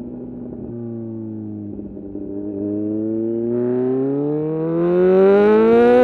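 2020 Kawasaki Z900's inline-four engine through a full titanium SC-Project exhaust, holding a steady note for about two seconds, then accelerating hard in one gear, its pitch and loudness climbing steadily.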